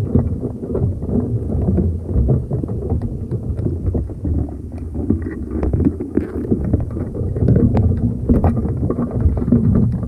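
Muffled, uneven low rumble of seawater moving against an underwater camera housing on the seafloor. Scattered scratches and taps run through it, a few louder ones past the middle, as Dungeness crabs clamber over the camera and crab pot.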